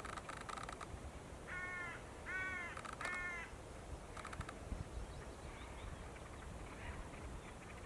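Bird calls: three harsh, nasal caws in quick succession about a second and a half in, with short dry rattling notes before and after. Wind rumbles on the microphone throughout.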